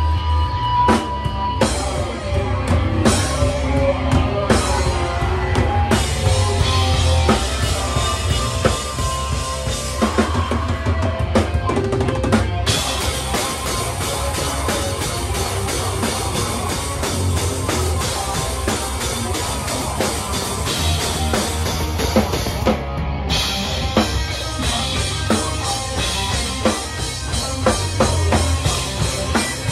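Live heavy rock band playing in a small room: distorted electric guitars and bass over a drum kit with heavy bass drum, snare and cymbals. The cymbals wash in louder about halfway through.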